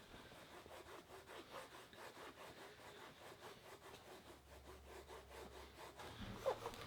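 A shoelace being sawed back and forth against plastic Cobra restraint cuffs, wearing through the plastic by friction: faint, repeated rasping strokes.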